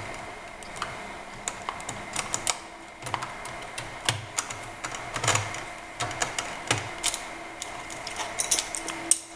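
Irregular small clicks and taps of hands handling a laptop wireless card and its screws, as the card is worked free and lifted out of its slot.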